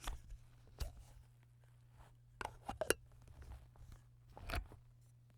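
Nespresso Aeroccino milk frother being handled: a series of light plastic clicks and short clatters, a cluster of them between two and three seconds in, over a faint steady low hum.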